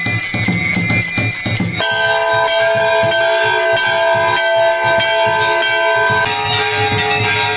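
Brass temple bells clanging rapidly and continuously, about four strikes a second, with a drum beat underneath.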